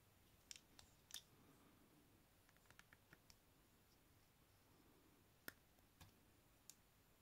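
Small hard-plastic toy parts clicking as fingers handle a Transformers figure and fit a plastic add-on piece: scattered sharp clicks, a quick run of small ticks about three seconds in, and the sharpest click about five and a half seconds in.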